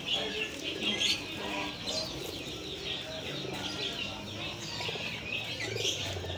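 Many caged songbirds chirping and twittering together, with pigeons cooing underneath.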